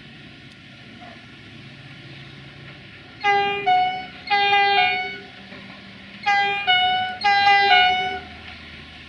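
Train horn sounding four two-note blasts, a higher note stepping down to a lower one each time, in two pairs starting about three seconds in. A steady low hum runs underneath.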